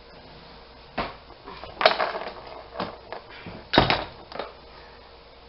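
Kitchen utensils clinking and clattering as they are handled, as when a bigger spoon is fetched for mixing: about five sharp knocks, the loudest about two and four seconds in.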